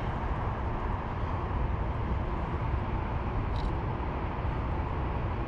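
Steady low rumbling outdoor noise with no clear single source, and a faint tick about three and a half seconds in.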